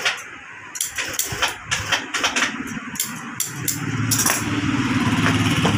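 Scissors snipping through leather glove trim, a run of sharp separate snips. About halfway in, an industrial sewing machine's motor starts running with a steady hum that grows a little louder.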